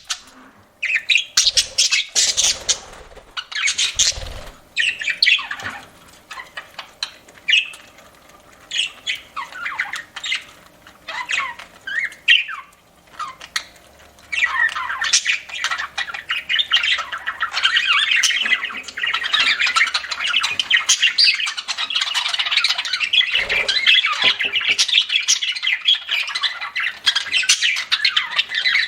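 Budgerigars chirping and squawking. There are scattered short calls at first, and from about halfway a dense, continuous chatter of several birds at once.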